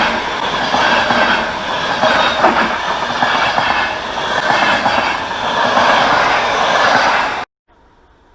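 Passenger train rolling along the track, wheels clattering over rail joints with a thin squeal of steel wheels on rail. The sound cuts off abruptly near the end, leaving only a faint background.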